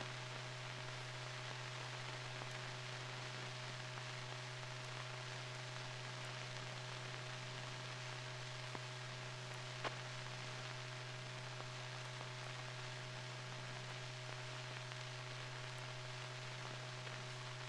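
Steady hiss and low hum with a few faint clicks. This is the noise floor of an old silent newsreel transfer that has no soundtrack.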